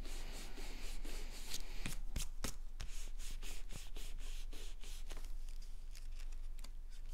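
Hands rubbing and pressing on folded cardstock, pressing freshly glued paper layers together: a scratchy rubbing and rustling of paper, with a few sharp taps about two seconds in.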